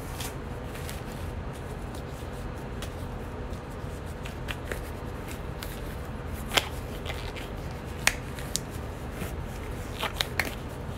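Light rustling and scattered small clicks from a printed paper sheet being held up and handled, over a steady low room hum. A few sharper clicks come about six and a half and eight seconds in and again near the end.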